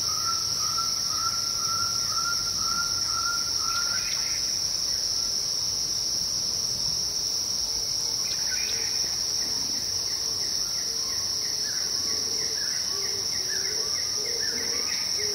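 Steady high-pitched insect drone, with series of short repeated calls about three a second over it, one run in the first four seconds and another through the second half.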